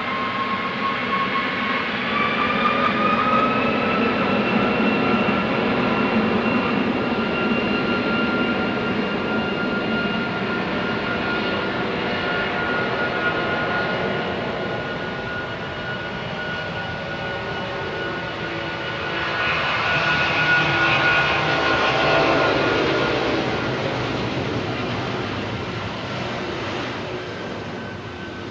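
Airbus A340-600's four Rolls-Royce Trent 500 jet engines spooling up to take-off power: a whine rises in pitch over the first few seconds, then holds steady as the jet accelerates down the runway. About twenty seconds in the sound swells and its tones fall in pitch as the airliner rolls past.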